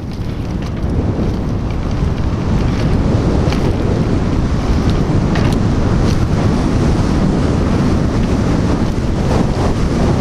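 Heavy wind buffeting the microphone as a bike speeds across bumpy grass, building over the first second and then staying loud, with scattered light clicks and knocks from the bike as it rides.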